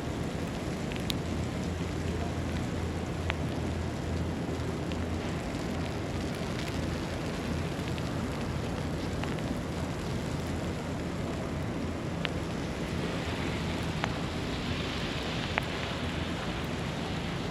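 City street ambience in a snowstorm: a steady low rumble under an even hiss, with a few sparse light ticks. Near the end a higher hiss swells and fades.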